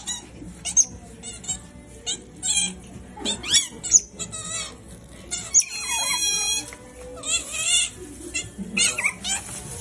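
Several Asian small-clawed otters begging for food, giving rapid, high-pitched squeaking chirps that rise and fall, with one longer, steadier squeal about six seconds in.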